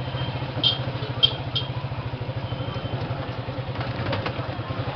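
Small motorcycle engine idling steadily with a fast, even low pulse. A few short high squeaks come about a second in, and a brief clatter near the end.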